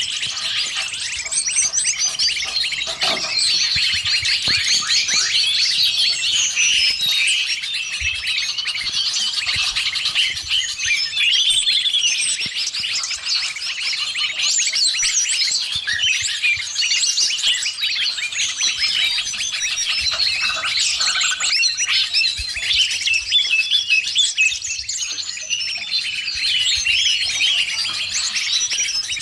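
Dense, continuous chorus of many small songbirds chirping and trilling over one another, mixed with green leafbird (cucak ijo) song: a bird-lure recording of 'noisy birds' played to attract wild birds.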